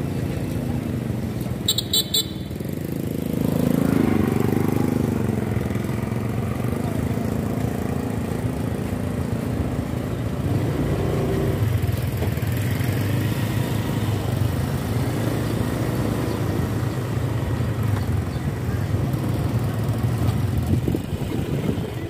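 Motorcycle engine running as it is ridden along a street, with wind and road noise, getting louder between about three and five seconds in as it speeds up. A short, high-pitched horn toot sounds about two seconds in.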